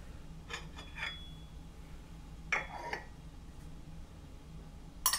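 Tableware being handled: a few light clinks, one with a brief ring, and a short rustling scrape, over a low steady hum, with a sharper clatter right at the end.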